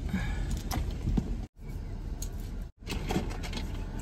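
Hands rummaging through a wallet and handbag for loose change: scattered light clinks and rustles over a low steady rumble.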